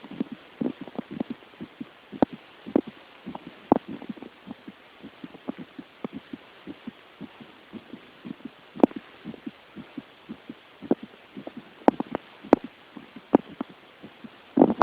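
A young woman's fast heartbeat heard by auscultation: a quick, steady run of low lub-dub thumps. A few sharp clicks stand out over the beats.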